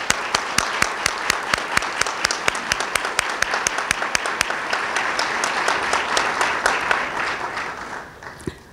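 Audience applauding in a hall, with the sharp claps of one nearby clapper standing out at about four a second. The applause dies away near the end.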